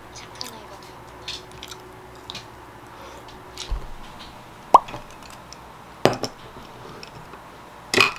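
Tabletop handling sounds while making an iced coffee in a tall glass of ice: light ticks, a soft thud, a quick plop with a rising pitch just before the middle, a knock with a short ring about six seconds in, and a louder clatter near the end.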